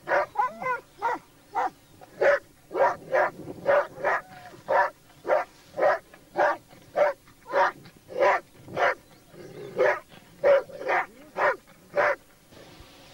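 Black Labrador retriever barking steadily at a wild boar, about two barks a second, holding the boar at bay. The barking stops shortly before the end.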